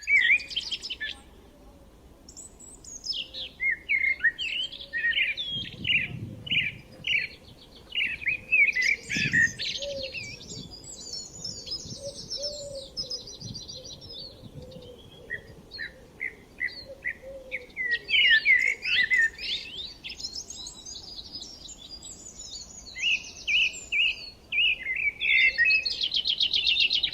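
Several birds chirping and singing over one another in quick, overlapping phrases, with rapid trills mixed in.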